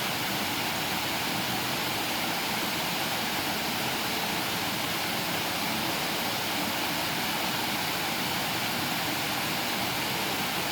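Waterfall rushing, a steady, even wash of falling water with no breaks.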